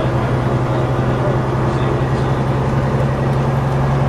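MCW Metrobus's Gardner six-cylinder diesel engine running steadily with a deep, even drone.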